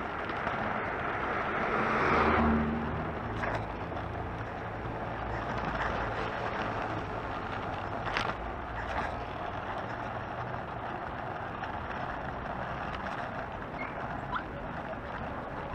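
Steady wind and rolling noise from riding an Oxelo Town 9 EF electric kick scooter, with a swell about two seconds in and a couple of short knocks around eight and nine seconds.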